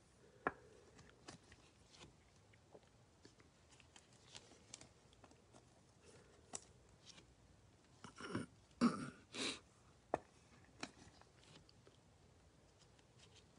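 Faint handling noise of trading cards and clear plastic card sleeves in gloved hands: scattered light clicks and taps, with a short burst of plastic crinkling about eight to nine and a half seconds in.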